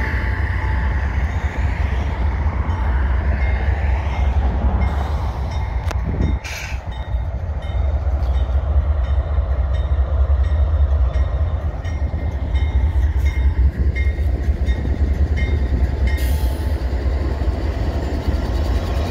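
Diesel freight trains passing: locomotives and freight cars rolling by on the rails, a steady low rumble that dips briefly about six seconds in.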